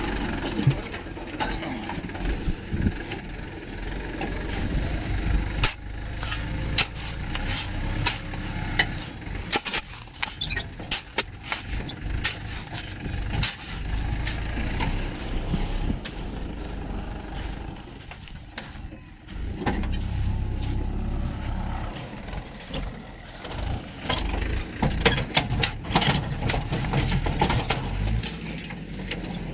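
Steel shovel blade digging and scraping into gravelly sand beside a trailer wheel sunk in sand, many sharp scrapes and clicks, over the low steady running of a tractor's diesel engine.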